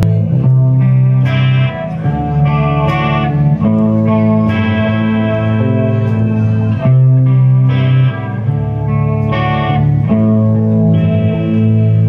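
Live rock band playing a loud instrumental intro: electric guitars hold sustained chords that change every one to three seconds, without vocals.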